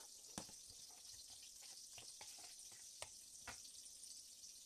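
Faint steady sizzle of palm oil heating in a steel pot, with about five light knocks as plastic bowls and a spoon are set down on the glass cooktop.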